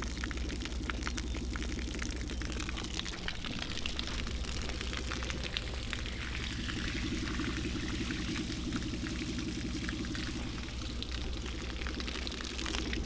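Water pouring and splashing steadily out of a bass boat that was launched without its drain plug in, over a steady low hum.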